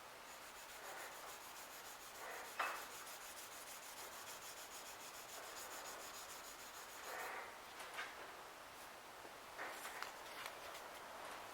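Fine 1500-grit sandpaper rubbed by hand in light strokes across an etched Damascus steel knife blade, polishing the high spots of the pattern. The strokes are soft and come at irregular intervals, a few seconds apart.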